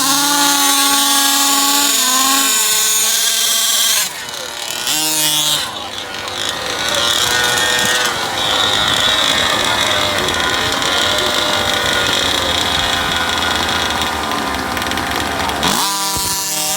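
Small two-stroke gasoline engine of a large-scale RC car revving, its pitch climbing at the start and again near the end, with a steady high-pitched whine in between.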